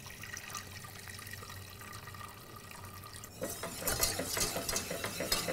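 Faint liquid sounds from a pot of veal fricassee sauce, then about three and a half seconds in a metal utensil starts stirring and clinking against the pot, working butter-and-flour paste into the sauce to thicken it.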